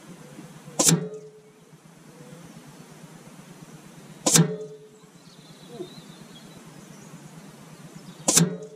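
Three .177 JSB pellets striking a paper target card on its board, each a sharp crack with a short ringing tail, about three and a half seconds apart.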